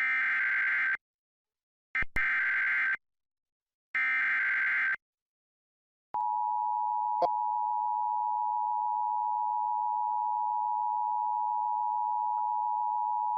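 Emergency Alert System SAME header: three one-second bursts of warbling digital data tones, a second apart. About six seconds in, the EAS two-tone attention signal (853 and 960 Hz together) starts, a steady dual-tone alarm that is still sounding at the end.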